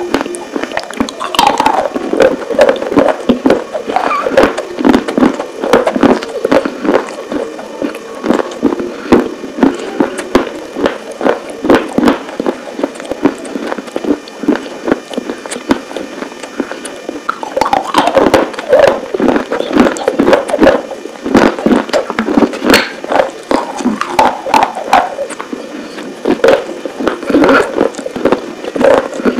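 Close-up chewing of crunchy baked clay pieces: rapid, irregular crunches and crackles, several a second, with wet mouth sounds in between.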